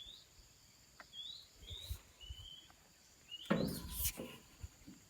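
Short rising bird chirps, repeated every second or so over quiet background noise, with a brief louder noise about three and a half seconds in.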